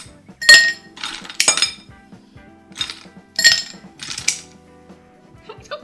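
Ice cubes clinking as they are picked one at a time with metal tongs from a glass bowl and dropped into a glass: a series of separate, sharp clinks, spaced unevenly, about half a second to a second apart.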